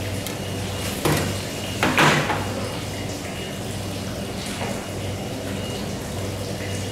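Steady low background hum with two short, sudden handling sounds about one and two seconds in, the second louder, from the knife and tuna block being handled on a wooden cutting board.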